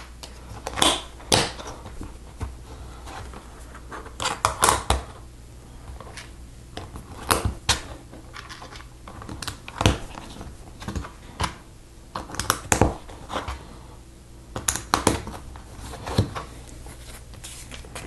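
Plastic Lego bricks and plates clicking and clacking as they are handled and pressed together, in irregular sharp clicks, over a low steady hum.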